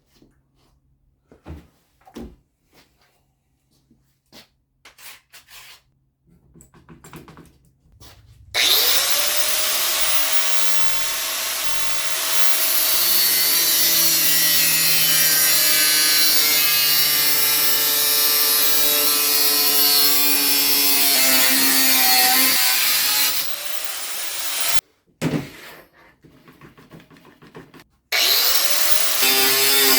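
A few light taps and knocks, then about eight seconds in a handheld electric angle grinder spins up with a rising whine and runs on the Vanagon's steel body panel for about fifteen seconds, its pitch sagging slightly under load. It stops, then runs again briefly near the end.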